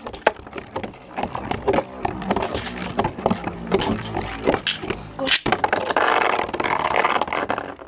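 Metal Fight Beyblade tops spinning in a plastic stadium, a whirring scrape across its floor. A sharp clack comes a little over five seconds in, and the scraping is densest in the last two seconds.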